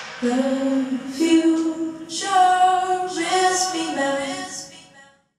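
Female voices singing a cappella in long held notes, several pitches at once, fading out about five seconds in.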